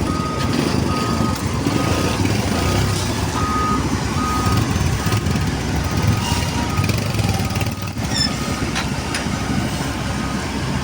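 Backup alarm on heavy construction equipment beeping in a steady single-tone pulse, less than twice a second, over the low rumble of a diesel engine working. The beeps fade for a few seconds midway and come back near the end.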